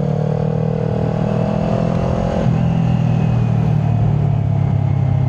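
Kawasaki Ninja 400 parallel-twin engine with a Yoshimura aftermarket exhaust, running under way. Its pitch climbs slightly, then drops and levels off about halfway through.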